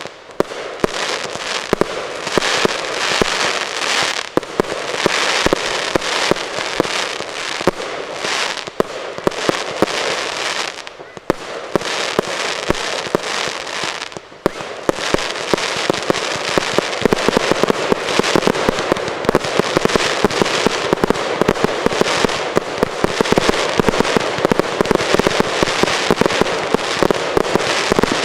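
Fireworks display: a dense barrage of rapid crackling pops and bursting shells, with two brief lulls before the halfway point.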